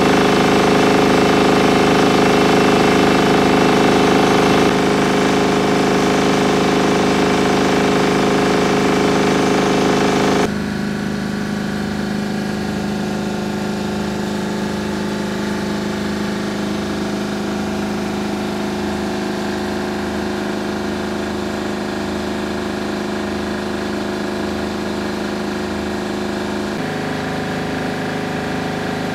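Portable generator engine running steadily at a constant speed. About ten seconds in it abruptly becomes quieter and duller.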